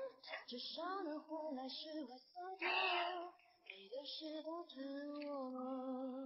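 A singing voice carrying a melody in short phrases, ending on a long held note, with little audible accompaniment.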